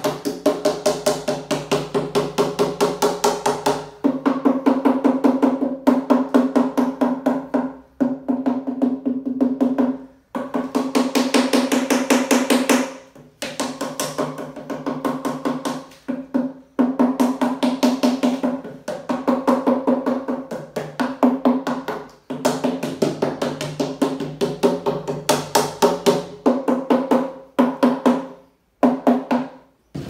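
Rubber mallet rapidly beating an upturned plastic hive mould, knocking the cast concrete hive piece loose. The hollow mould rings under several blows a second, in runs of a few seconds broken by short pauses.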